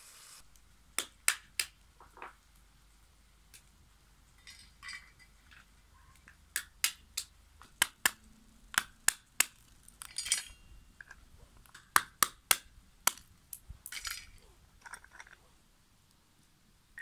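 Walnuts being cracked with a hand-held stone on a tiled floor: about twenty irregular sharp knocks and cracks of breaking shell, with a couple of short crunching sounds.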